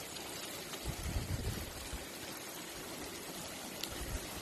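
Shrimp and vegetable stew simmering in a pan on a camp stove: a steady hiss and bubbling, with a few low rumbles about a second in and near the end.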